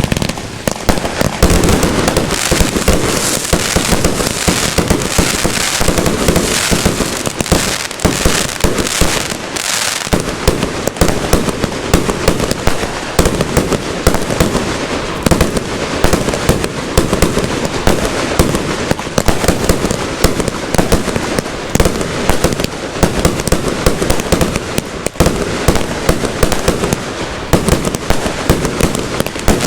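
Fireworks going off in quick succession: a continuous barrage of many bangs and crackles a second, with no let-up.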